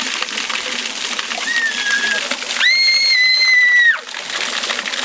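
Two steady whistled notes over a constant hiss: a short one about a second and a half in, then a longer, louder one lasting just over a second.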